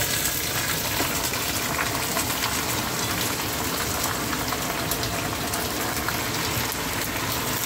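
Mango pieces sizzling as they are tipped into hot oil and browned, caramelized sugar with habanero peppers and garlic: a steady hiss with small crackles throughout.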